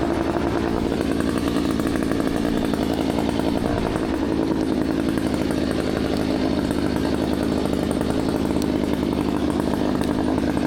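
A motor running steadily at high revs, cutting off abruptly near the end.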